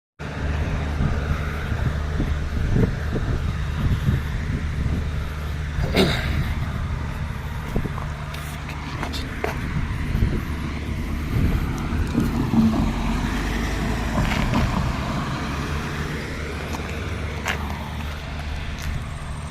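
Car driving, heard from inside the cabin: a steady engine and road hum with several short knocks and thumps from the car going over the rough road surface, the sharpest about six seconds in.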